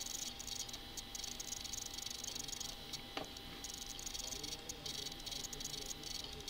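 Faint steady background noise: a high-pitched chirring hiss, with a single short click about three seconds in.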